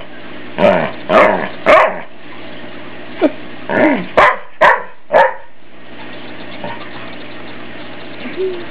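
Australian shepherd giving a run of short, loud barks, about eight in the first five seconds, each with a bending pitch, then falling quiet.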